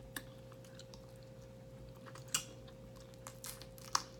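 Faint eating sounds: a few scattered wet mouth clicks and smacks while chewing and biting into a sauced chicken wing, the sharpest about two seconds in and again just before the end.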